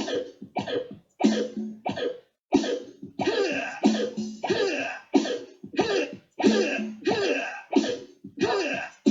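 Short cough- and grunt-like vocal sounds laid out as a steady beat, one about every two-thirds of a second, some sliding up and down in pitch.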